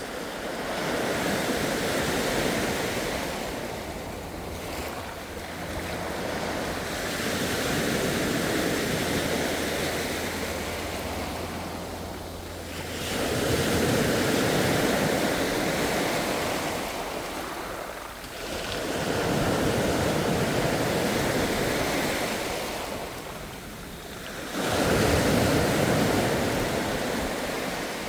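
Ocean waves breaking and washing up the shore, each wave swelling and then falling away, about every six seconds.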